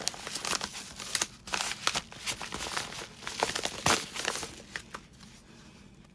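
Padded paper mailer envelope crinkling and crackling as it is pulled open and a packaged stamp set is slid out of it, with many quick sharp rustles. The handling dies down about five seconds in.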